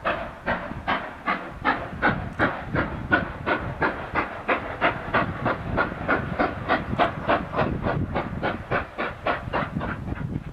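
Steam locomotive exhaust beats, chuffing in a steady rhythm that quickens from about two and a half to four a second as the engine gathers speed, then fades near the end.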